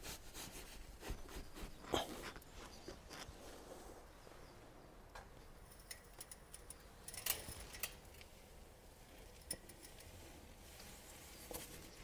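Faint scattered knocks, scrapes and clicks as dry sand is scooped and tipped with a plastic scoop around bricks inside a drum, with a few slightly louder knocks about two seconds in and again around seven to eight seconds in.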